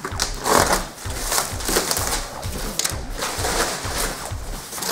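Plastic and foil-lined packaging crinkling and rustling as it is handled and pulled off a large parcel by hand, in irregular crackles.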